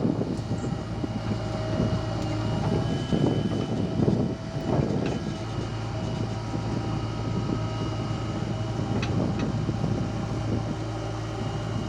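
Heavy diesel engine of a backhoe loader running steadily, with a steady higher-pitched whine over the low engine hum.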